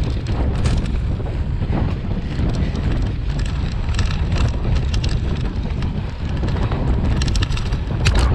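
Wind buffeting the microphone of a cyclocross bike's onboard camera at race speed on a dirt trail, a steady low rumble. Short rattles and clicks come through from the bike over bumps, clustered around the middle and near the end.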